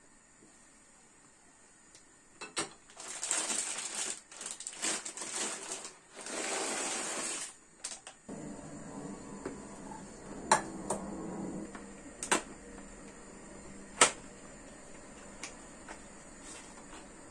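Household handling sounds: several seconds of rustling and scraping, then a few sharp clicks and knocks.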